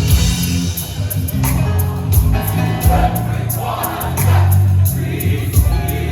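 Live gospel choir singing with a band, over a heavy bass line and a steady beat.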